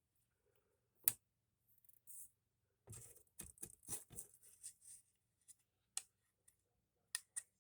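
Small wooden model pieces being handled and fitted by hand: scattered light clicks and scrapes, with a sharp click about a second in and a cluster of scraping clicks around three to four seconds.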